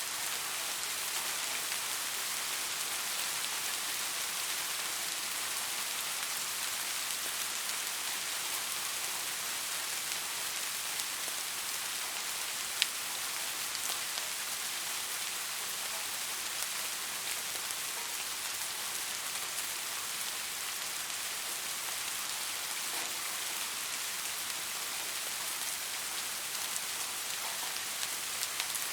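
Soft rain falling steadily: an even high hiss with fine scattered drop ticks, and one sharper single drop click about 13 seconds in.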